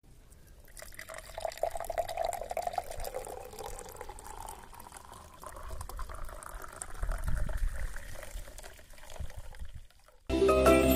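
Drink poured in a steady stream into a tall drinking glass, the pouring sound rising in pitch as the glass fills and foams. Music comes in just before the end.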